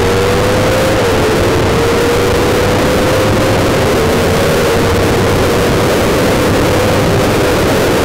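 Motorcycle engine heard from the rider's seat while riding at speed, its pitch climbing slowly and dipping briefly at gear changes about a second in and again about four seconds in, over heavy wind noise.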